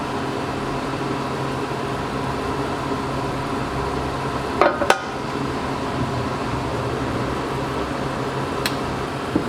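Steady hum of kitchen machinery, with two sharp metal-or-glass clinks in quick succession about halfway through and a single click near the end.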